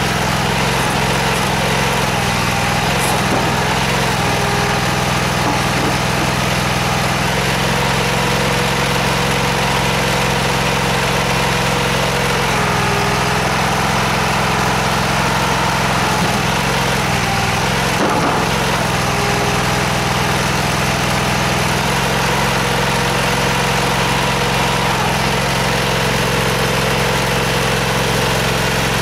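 The engine of an M-50 hydraulic stone splitter runs steadily, its pitch stepping and shifting as the splitting blades are worked against a block of stone. A single knock sounds partway through.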